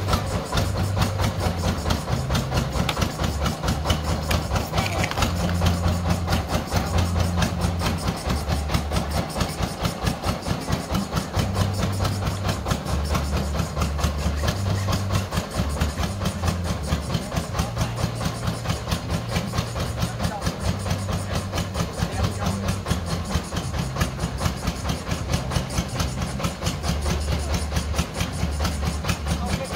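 Engine of a small truck-mounted water-well drilling rig running steadily, with a fast, even chugging pulse.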